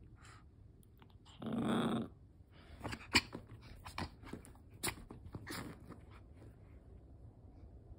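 Small Pomeranian–Chihuahua mix dog growling in play once, for about half a second, about a second and a half in. A string of short clicks and scuffles follows during the play.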